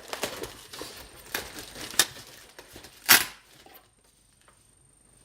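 Unboxing packaging being handled: rustling with a run of sharp knocks and crinkles, the loudest just after three seconds in.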